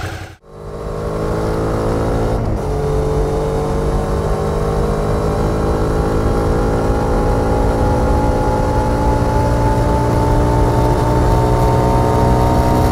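Suzuki V-Strom 650's V-twin engine pulling under moderate acceleration while riding. Its note dips briefly as it shifts up about two and a half seconds in, then rises steadily.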